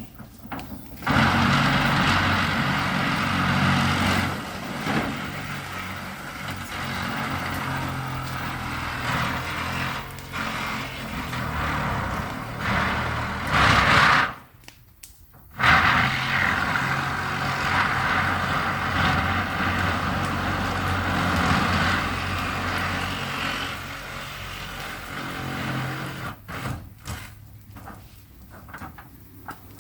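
Heavy machinery engine running on a demolition site, with a sudden drop-out for about a second halfway through before it resumes.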